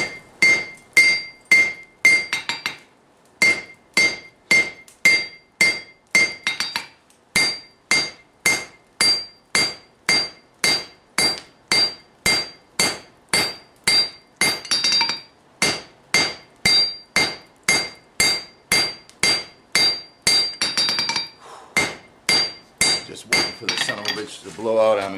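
Hand hammer striking a hot forge-welded Damascus steel billet on an anvil, about two blows a second with a short pause about three seconds in. Each blow carries a clear ringing anvil tone. The billet is being drawn out.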